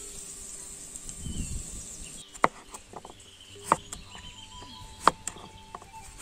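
Kitchen knife slicing through a cucumber and knocking on a wooden chopping board: four sharp chops about a second and a quarter apart, starting about two seconds in.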